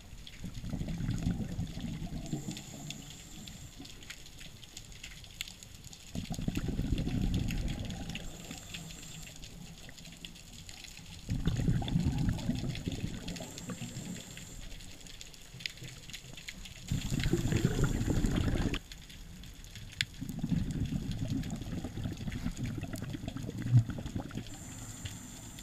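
Scuba diver's exhaled bubbles rumbling from the regulator, heard underwater through the camera housing: regular bursts of bubbling, each a couple of seconds long, about every five to six seconds, five in all.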